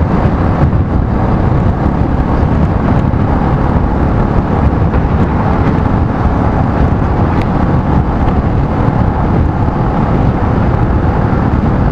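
Steady rush of wind and road noise on an action camera's microphone on a moving motorcycle, loud and low, with no distinct engine note.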